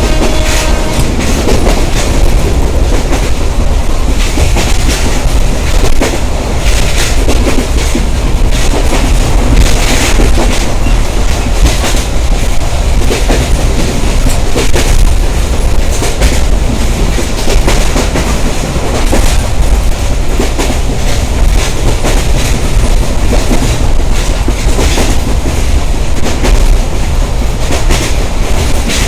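Simanta Express passenger train running on the track: a loud, continuous rumble of wheels on rail with a steady clatter of clickety-clack knocks.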